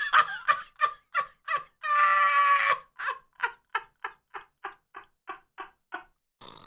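A cartoon character's voice making a run of short yelps, about three a second, broken about two seconds in by one long held cry, then going on with the short yelps, which slow slightly near the end.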